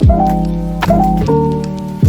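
Background music: sustained keyboard-like chords over a beat, with a deep kick drum right at the start and a sharper snare-like hit a little before the middle.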